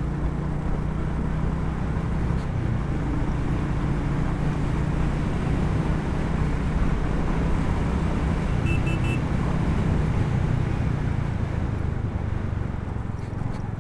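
Royal Enfield Hunter 350's single-cylinder engine running at a steady cruise, under steady wind and road noise from the moving motorcycle. Three short high beeps come about nine seconds in.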